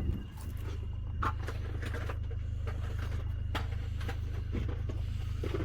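A steady low engine hum, like a vehicle idling, with a few scattered clicks and knocks over it.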